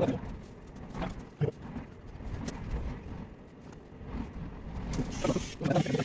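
Low rumble of road traffic passing on the street outside, with short bits of talk near the start and near the end.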